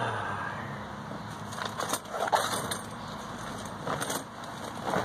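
Short rustles and shuffles, four or five of them, as a person moves and settles into a folding camp chair, over a steady background hum.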